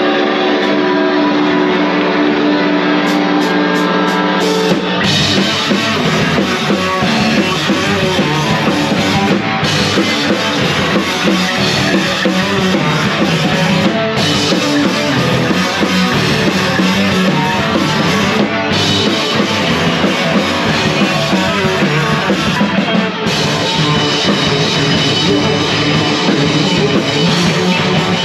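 Live rock band played loud on electric guitars, bass and drums. Held, ringing guitar and bass notes open, a few drum hits follow, and the full band crashes in about five seconds in and plays on at full volume.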